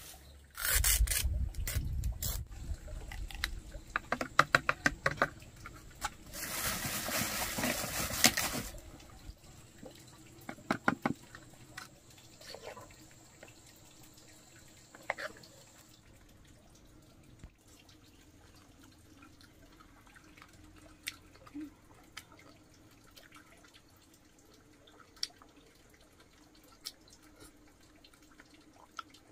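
A spoon stirring and scooping thick jackfruit yogurt in a bowl: wet squelching with spoon clicks and scrapes. The first nine seconds hold louder noisy stretches, and after that there are only sparse faint clicks.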